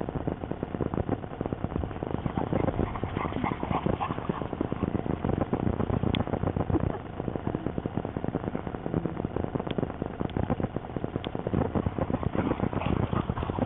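Footsteps crunching on coarse sand, a busy run of irregular steps and scuffs.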